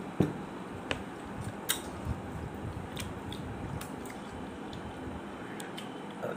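Irregular soft clicks and smacks of fingers picking the last grains of rice off a metal plate and being licked clean, about eight sharp ones spread through, the loudest just after the start.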